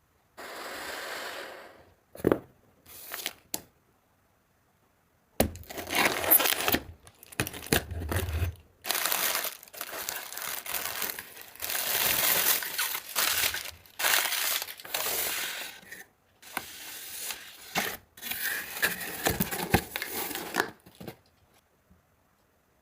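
Phone packaging being opened and handled: a few sharp clicks, then long spells of crinkling, rustling and tearing of wrap and paper.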